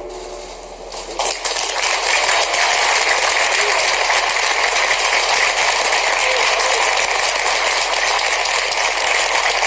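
Audience applause that breaks out about a second in, after the skating music ends, and carries on as a steady, dense clapping.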